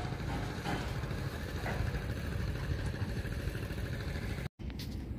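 A small boat engine idling steadily, a dense low rumble with no change in speed; the sound drops out for a moment about four and a half seconds in.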